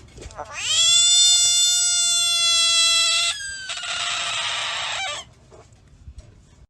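Domestic cat giving one long, loud yowl that rises at the start and then holds steady for nearly three seconds, breaking into a rougher, breathy stretch that stops about five seconds in.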